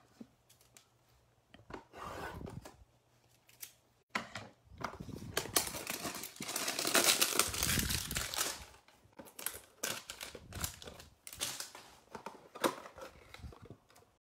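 Cardboard hanger box of football trading cards being torn open and its packaging crinkled, an irregular run of tearing and crackling that is loudest in the middle, with scattered clicks and rustles near the end.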